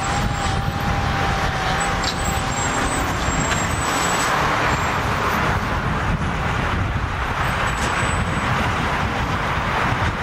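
Steady motor-vehicle noise, a low rumble with a rushing hiss, and a faint thin whine over the first three seconds.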